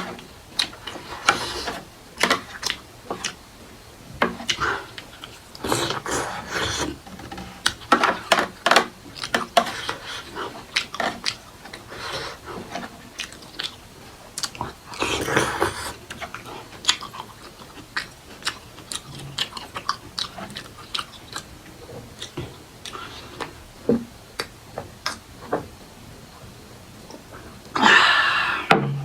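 Close-miked chewing of a person eating a Nepali meal of chukauni and black-lentil bara: irregular clusters of sharp mouth clicks and smacks. A louder noisy burst comes near the end.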